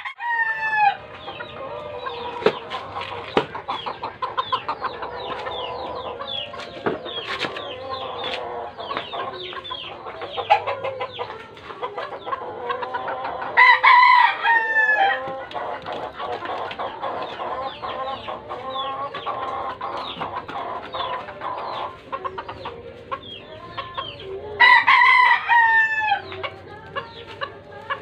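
Roosters crowing, with three loud crows: one at the very start, one about halfway through and one near the end. Clucking and chicken chatter go on steadily in between.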